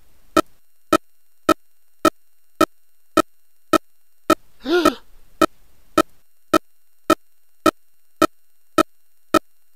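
Sound-effect loop: short electronic beeps ticking evenly, just under two a second, with one brief groan-like voice clip about five seconds in.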